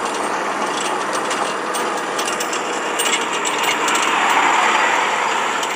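Farm vehicle running along a farm lane, with a steady mechanical rattle and fast clicking, a little louder about four seconds in.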